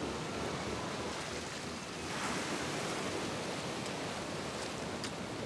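Sea surf washing steadily against the rocks, with a wave surging a little louder about two seconds in.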